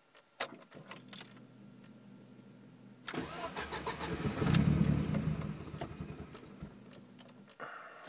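Warm turbocharged BMW M42 four-cylinder with MegaSquirt engine management being restarted: after a faint low hum, the engine cranks and fires about three seconds in, runs up briefly, then stumbles and dies away without staying running. This is the hard hot-start symptom, which the owner takes for too rich a mixture that needs leaning out.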